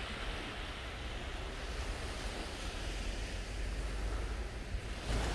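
Steady wash of sea waves on the beach, with a low rumble of light wind on the microphone.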